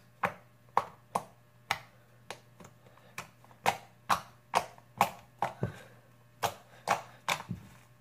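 Homemade slime being squeezed and pressed by hand against a table, giving sharp pops and clicks, uneven, about two a second.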